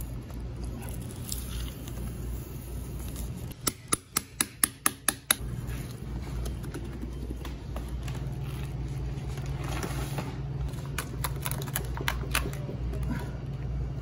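Knife work on a large tuna: a quick run of about eight sharp clicks a few seconds in, then scattered lighter clicks, over a steady low hum.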